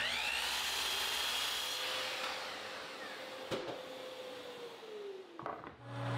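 Power miter saw crosscutting a cherry board to rough length: the motor whines up to speed, the blade runs through the cut with one sharp knock about halfway, and the blade winds down with a falling tone near the end.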